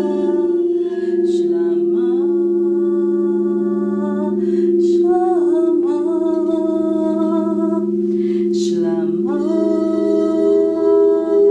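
Crystal singing bowls ringing with steady sustained tones while a woman sings long wordless notes over them, breaking off for audible breaths every few seconds. About ten seconds in, a higher bowl tone comes up as she plays a handheld crystal bowl.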